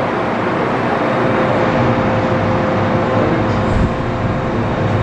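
MTR M-train running through a tunnel, heard from inside the carriage: a steady loud rumble of wheels on rail with a steady hum. There is a brief low bump a little under four seconds in.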